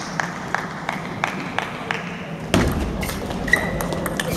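A table tennis ball ticking on a hard surface about three times a second, then a low thud about two and a half seconds in, followed by the sharp ringing pings of ball on bat and table as a rally starts.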